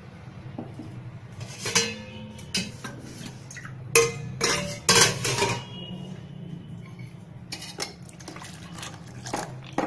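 Stainless-steel kitchen vessels clinking and clanking: a steel ladle knocking against the cooking pot and steel plates and lids being handled. The clanks come irregularly, a few with a brief ring, the loudest about four and five seconds in, over a steady low hum.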